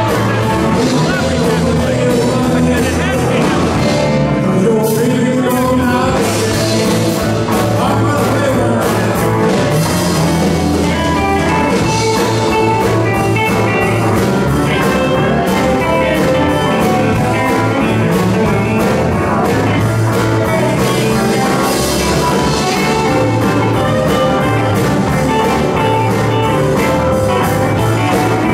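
Live rock band with electric guitars, electric bass, drums, keyboard and saxophones playing a blues-rock song, with a singer.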